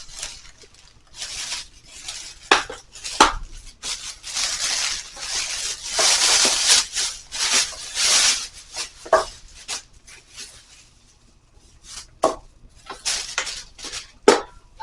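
Packaging rustling and crinkling, with several sharp clacks as stand-mixer parts and attachments are handled and set down.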